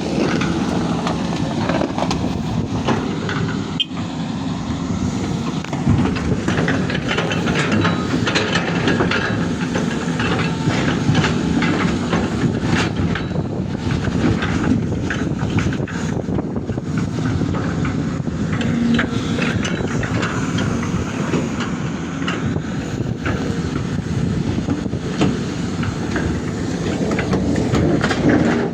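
Excavator's diesel engine running steadily, with many short metallic clanks and rattles.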